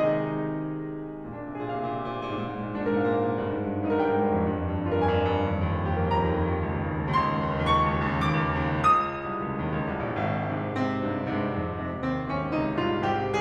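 Background piano music: a classical piece with a steady flow of sustained notes and chords.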